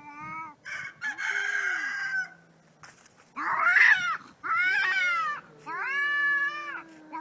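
Two cats yowling at each other in a standoff: about five long, drawn-out wails, each rising and falling over roughly a second, with a lower, steady moan running beneath them.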